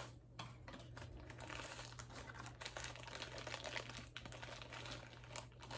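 Small clear plastic bag crinkling and rustling in the hands as it is handled and opened, a run of many small irregular crackles.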